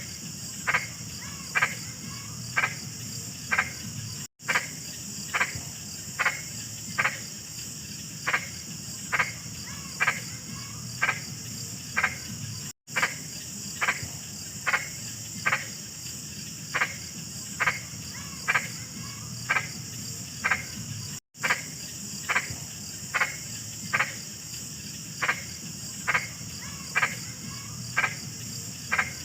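A frog croaking in a steady rhythm, short calls about twice a second, over a continuous high-pitched trill of crickets. The recording drops out for an instant about every eight seconds.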